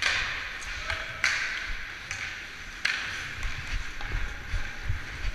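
Hockey skate blades cutting hard into the ice three times, each a sudden scrape that hisses away, with light taps between them.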